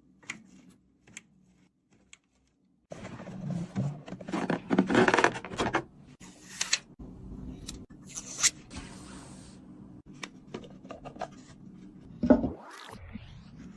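Hands handling computer parts and their packaging: scraping and rubbing with scattered clicks, a louder stretch of rustling about four to six seconds in, and a sharp knock near the end.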